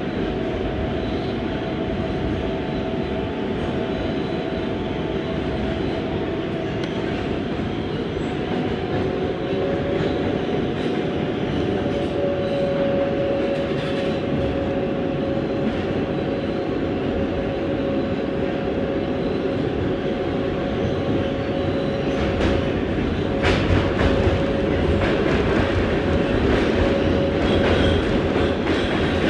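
New York City Subway R188 car running at speed through a tunnel: a steady rumble of wheels on rail with a held whine, a second whine coming in about ten seconds in. Sharp clicks of wheels over the rails join in during the last several seconds.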